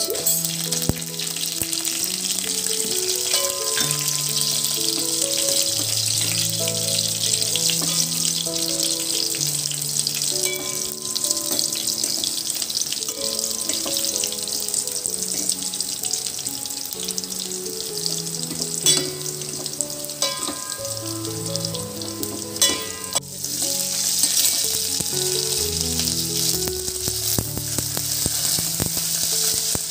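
Garlic cloves, dried red chillies and mustard seeds, joined by curry leaves, sizzling steadily in hot oil in a steel pot as a tempering is fried and stirred with a spoon, with a few sharp clicks. Background music with a simple melody plays throughout.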